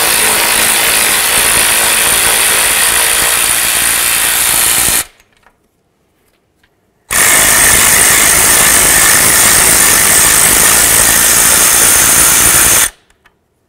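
Power ratchet with a 13 mm socket running twice, each time for about five to six seconds, backing out the bolt and nut that hold the ABS wire bracket on the steering knuckle.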